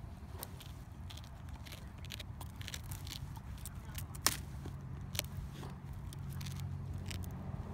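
Dogs chewing and tugging on a long dry stick over wood chips: scattered crackling and scraping of the splintering wood, with two sharper snaps a little past halfway. A low steady rumble runs underneath.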